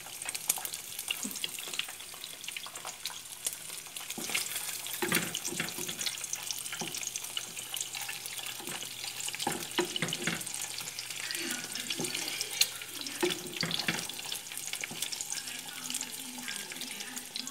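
Eggs frying in hot oil in a nonstick pan: a steady crackling sizzle with many small spattering pops. Occasional knocks and scrapes come from a wooden spatula folding the eggs.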